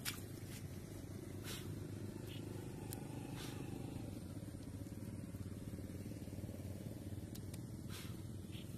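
Hands digging and scooping wet mud and clods around a hole in a dried pond bed: scattered soft scrapes and clicks over a steady low hum.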